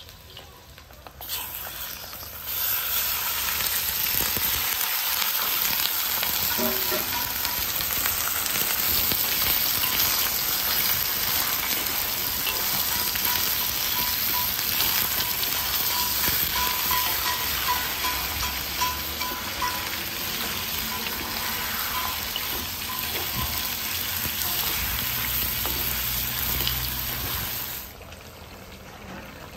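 Raw chicken pieces frying in hot oil in a steel wok, a loud, steady sizzle stirred with a wooden spoon. The sizzle starts abruptly about two seconds in and drops off sharply near the end.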